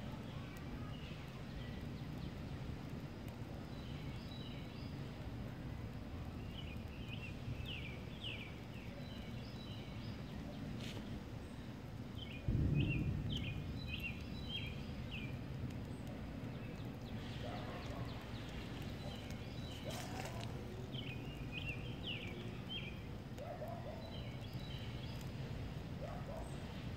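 Outdoor ambience: a steady low rumble of breeze, with small birds chirping in short runs of quick high notes several times, and a single low thump about halfway through.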